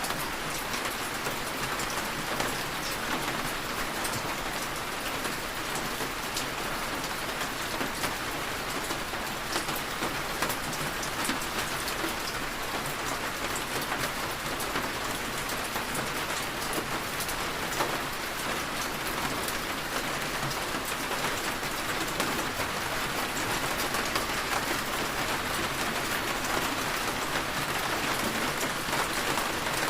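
Steady rain falling on a surface, a dense even patter with many fine drop ticks.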